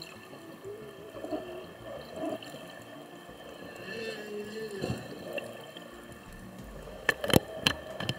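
Whale song heard underwater: wavering, gliding moans over a hiss of water. Several sharp clicks near the end are louder than the song.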